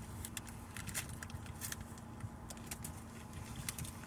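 Eating in a car: chewing and the crinkle of a paper food wrapper, heard as many small scattered clicks, over the steady low hum of the car cabin.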